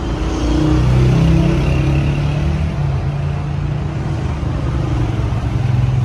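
Heavy truck engine running steadily, a low engine sound.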